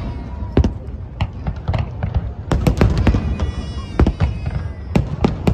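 Fireworks display: aerial shells bursting in quick, irregular succession, many sharp bangs and cracks over a continuous low rumble.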